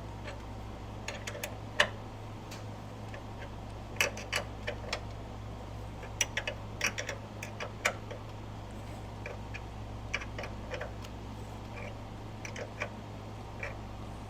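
Irregular metal clicks and taps of a small 8 mm hand wrench working a fastener, coming in scattered clusters over a steady low hum.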